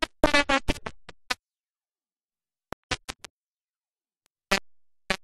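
A woman's voice in short, choppy fragments: a burst of speech in the first second or so, then dead silence broken by a few brief clipped snatches.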